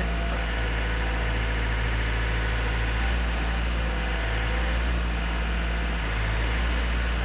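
Lovol construction machine's Japanese-built engine running steadily while the operator works the bucket, a constant low hum with slight swells as the load changes.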